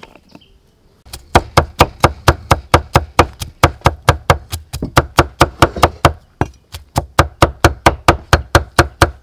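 Cleaver chopping garlic cloves on a thick wooden chopping block: rapid, even knocks about five a second, starting about a second in, with a short break past the middle.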